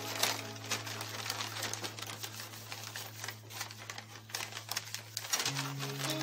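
Stiff brown paper bags crinkling and crackling in quick irregular clicks as the glued stack is pulled open into a snowflake, over soft background music whose held notes change about five seconds in.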